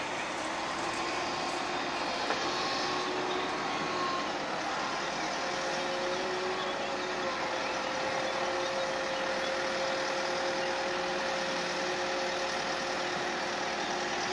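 Wacker Neuson EW100 wheeled excavator's diesel engine and hydraulics running steadily while it digs and swings, with thin steady whining tones over the engine noise and a faint tick about two seconds in.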